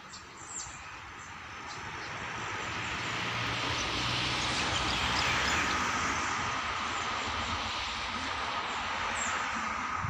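Diesel-hauled passenger train pulling away from a station, heard from on board: rolling and rail noise that builds over the first few seconds and then holds steady, with a thin steady whine over a low hum.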